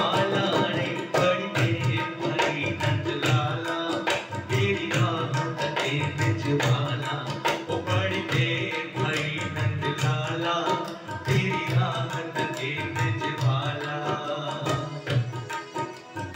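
Tabla played in a brisk, steady rhythm, deep bayan strokes under sharp dayan strokes, with a keyboard melody over it: an instrumental interlude of a devotional bhajan.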